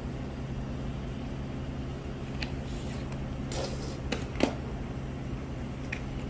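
Someone eating jjajangmyeon: a short slurp of noodles and a few light clicks of utensils against the bowl, the sharpest about four seconds in, over a steady low hum.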